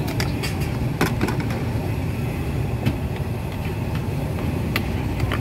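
A steady low engine-like rumble, with a few sharp clinks and knocks over it: a pair about a second in, one around three seconds and one near the end.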